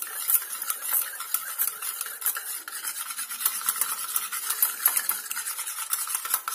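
Wire whisk beating an egg in a small stainless-steel bowl, its wires clicking and scraping rapidly and steadily against the metal.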